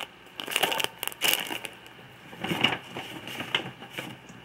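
Plastic snack packaging crinkling and rustling as it is handled, in a string of short bursts.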